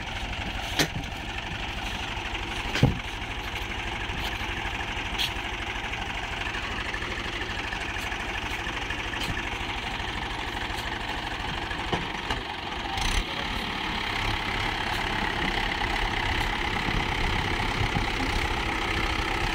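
Swaraj tractor diesel engine running steadily while hauling a loaded sand trailer through deep sand, with a few sharp knocks. The sound grows louder over the last few seconds.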